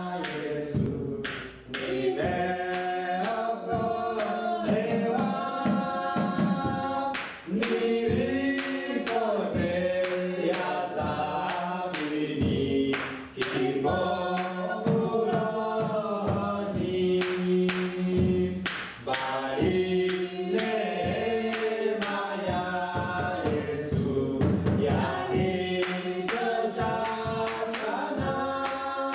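Choir singing a worship song, several voices holding notes together in harmony.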